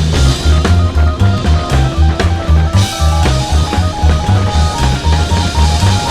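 Background music with a steady drum-and-bass beat and a stepping melody, over a haze of ride noise.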